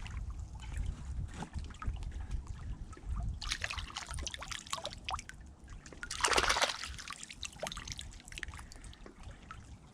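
River water splashing and trickling as hands feel along the river bottom and lift stones and pottery pieces out of the water, with a louder splash about six seconds in.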